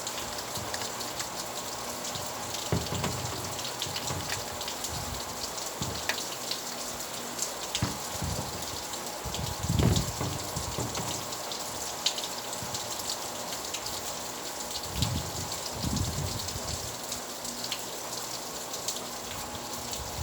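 Steady rainfall, with many individual drops striking close by as sharp ticks, and a few dull low thumps about three, ten and sixteen seconds in.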